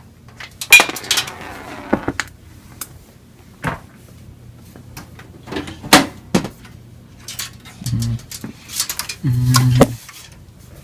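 Metal computer case side panel being handled and taken off: a loud metallic clank that rings briefly about a second in, then scattered clicks and knocks.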